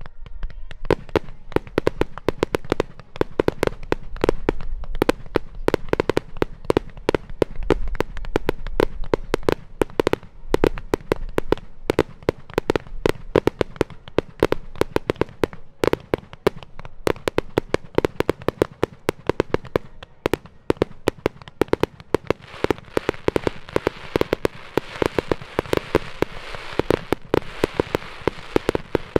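Rapid barrage of aerial firework shells bursting, several sharp bangs a second, as in a Japanese star mine. Near the end a crackling hiss of crackle-effect stars builds under the bangs.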